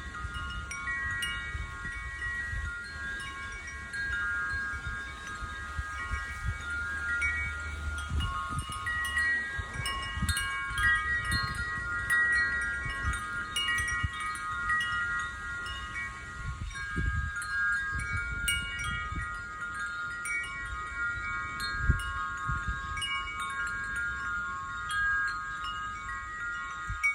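Wind chimes ringing on and off, several overlapping tones sounding together and fading, over a low rumble.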